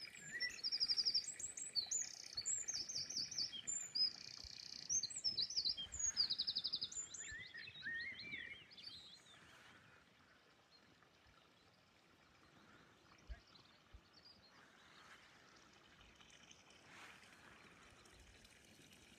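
A songbird singing a fast, varied song of rapid trills and whistled sweeping notes for about nine seconds, then near silence.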